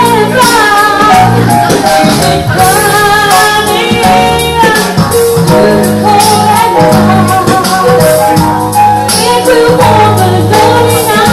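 Jazz trio playing live: a woman sings the lead melody over keyboard and electric bass guitar, with a steady beat.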